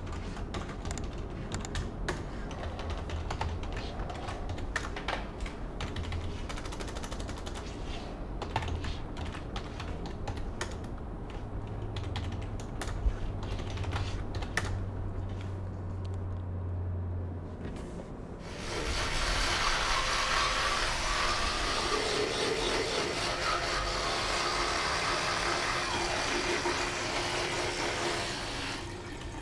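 Computer keyboard typing and mouse clicks, scattered sharp clicks. About two-thirds of the way in, this gives way to a steady rush of water from a bathroom tap running into a basin, which stops shortly before the end.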